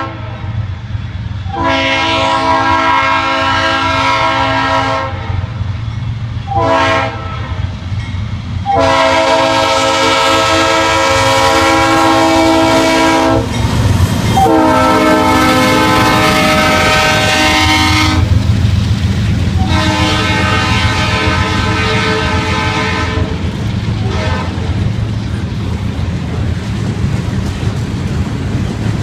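Norfolk Southern C40-8W freight locomotive sounding its Leslie RS3L three-chime air horn in a series of blasts (a long one, a short one, then three more long ones) as it approaches and passes, the chord dropping slightly in pitch as it goes by. After the horn stops, about five seconds before the end, the passing freight cars rumble and click over the rail joints.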